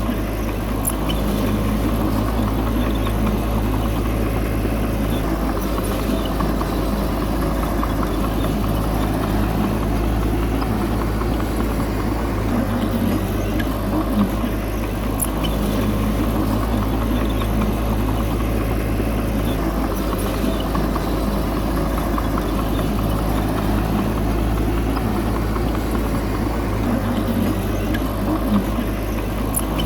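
Heavy diesel engine of earthmoving machinery running steadily at a constant pace, with a few faint clicks or clanks.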